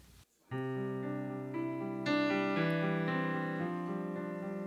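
Piano sound played on a Yamaha S90 ES stage keyboard, opening a song with sustained chords that begin about half a second in. The notes change as the chords move, and the sound fills out at about two seconds.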